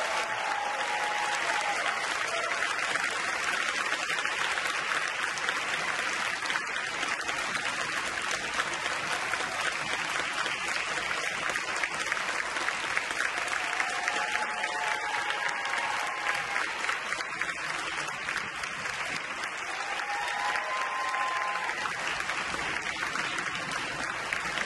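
Theatre audience applauding steadily, a sustained clapping that follows the end of a ballet number's orchestral music.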